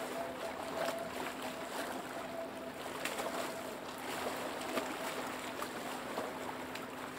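Small lake waves lapping and splashing close by, in many short irregular slaps over a steady wash of water. A steady low hum runs underneath.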